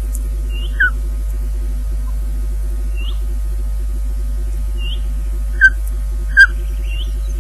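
Ospreys on the nest giving short, sharp whistled calls: one about a second in and two close together near the end, with fainter ones between. Under them runs a steady electrical hum with a rapid pulsing buzz.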